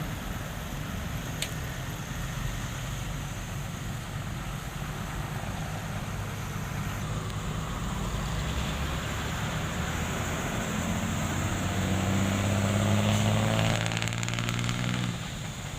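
Heavy construction machine's diesel engine running with a steady low rumble; from about ten seconds in it grows louder with a clearer engine note, then drops back near the end.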